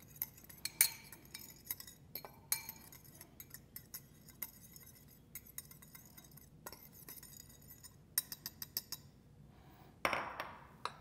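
Small metal spoon stirring dry spices in a small glass bowl, with light, irregular clinks of metal on glass and a quick run of clinks about eight seconds in. About ten seconds in there is a louder knock as the glass bowl is set down on the cutting board.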